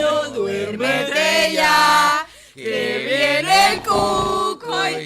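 Singing voices in a song, with long held notes and a short break about two seconds in.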